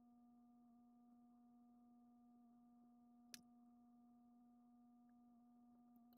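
Near silence with a faint steady hum, broken once a little past halfway by a single light click, as the screwdriver meets the revolver's side-plate screw.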